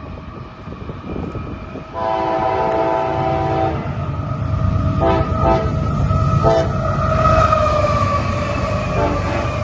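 CSX diesel freight train, led by CW44AC locomotive #238, sounding its multi-note air horn at speed: one long blast, then several short blasts, over the rumble of the approaching train, which grows louder from about two seconds in.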